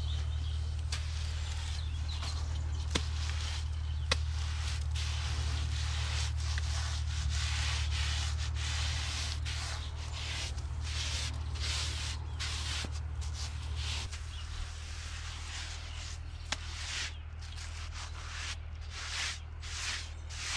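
Gloved hands rubbing and smoothing a lime-cement render onto a concrete-block plinth: a run of rough scraping, hissing strokes, over a steady low rumble.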